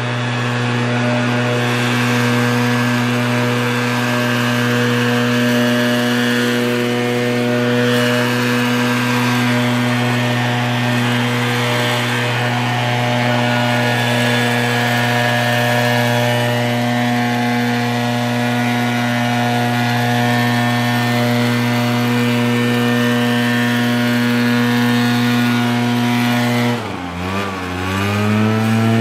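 Backpack leaf blower's two-stroke engine running steadily at high throttle, blowing grass clippings off a concrete driveway. Near the end the engine drops in pitch for a moment and then revs back up.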